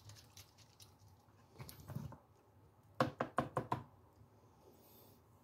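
Plastic snuffer bottle knocking against a plastic gold pan: about five quick knocks in under a second, after a softer scrape a couple of seconds earlier.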